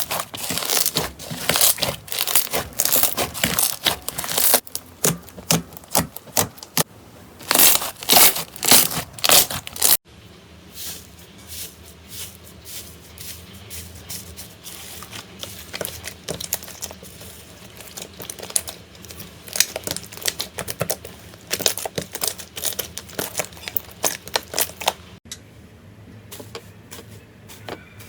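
Slime being squeezed and pressed by hand, making rapid crackling, crinkling pops. The crackling is loud and dense for the first ten seconds, then turns quieter and sparser after an abrupt change.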